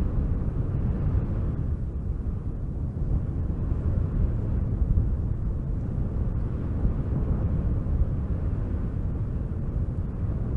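Wind blowing steadily with a low rushing sound, swelling a little in the first couple of seconds.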